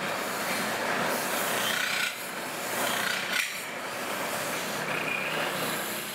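Brass being metal-spun on a spinning lathe: a long hand-held spinning tool pressed against the turning brass makes a steady rasping rub, with now and then a short high squeal. A low steady hum from the lathe runs beneath.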